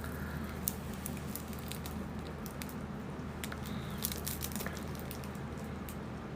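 Quiet room tone: a steady low hum with scattered faint clicks. No burp sounds in this stretch.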